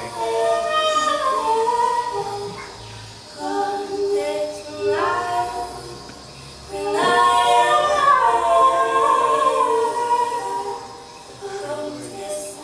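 A woman singing long, held, melodic phrases into a microphone with no instruments plainly heard, in four phrases separated by short pauses.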